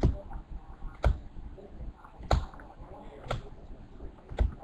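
Topps Archives baseball cards being flipped through one at a time, each card snapping against the stack with a sharp click, five times at about one a second.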